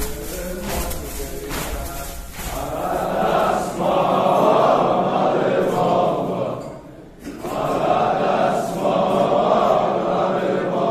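A crowd of men chanting together in unison, a Shia mourning chant for Hussein, in two long phrases with a brief break about seven seconds in. In the first two seconds a rhythmic striking, about one strike a second, sounds under the voices.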